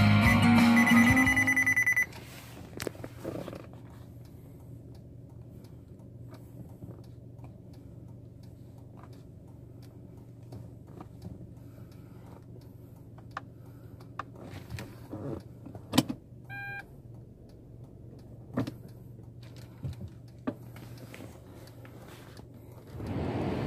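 Guitar music from the car radio cuts off suddenly about two seconds in. Then a quiet car interior with a steady low hum, scattered clicks from the dashboard buttons and touchscreen, and one short electronic beep a little after the middle. Near the end the climate-control fan starts blowing with a steady hiss.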